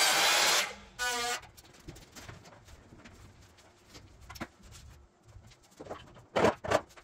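A power tool's cut ends abruptly about half a second in, followed by a short high squeak. Then come soft handling sounds, and near the end a few sharp knocks as vinyl planks are fitted on the floor.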